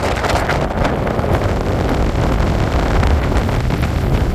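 Loud, steady rush of a river in high water, with wind buffeting the microphone.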